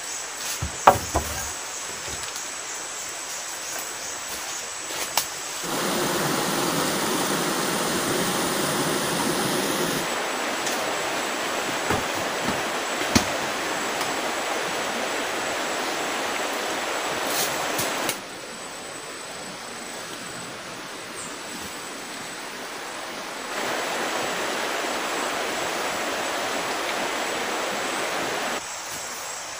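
Forest ambience: a steady rushing noise with a thin high tone running through it, stepping abruptly louder and quieter several times. A few sharp knocks come in the first half.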